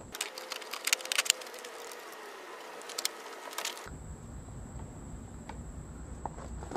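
Scattered light clicks and taps of metal parts being handled as a front wheel and axle are fitted into a mini bike's forks. The clicks cluster about a second in and again near three seconds.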